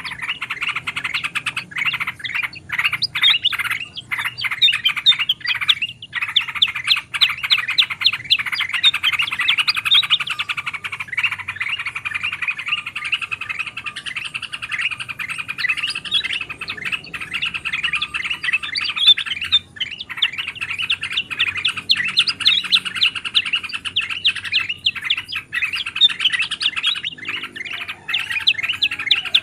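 Dense, unbroken chorus of bulbuls chattering and chirping, many quick calls overlapping: yellow-vented bulbul (trucukan) chatter mixed with other bulbul song in a layered bird-lure recording.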